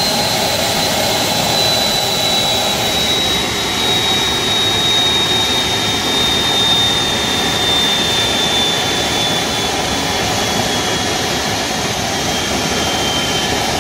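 Homemade turbocharger-based turbojet engine turning on its starter: a steady rushing roar with a high whine that slowly drops in pitch. It has not reached self-sustaining idle speed.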